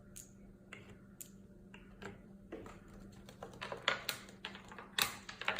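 A scatter of light clicks and taps from small objects being handled and set down on a hard surface, getting busier about three and a half seconds in.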